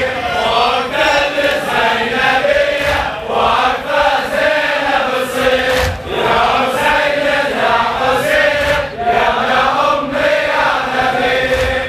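A group of mourners chanting a Shia Muharram lament (latmiya) refrain together, a sustained sung call without break.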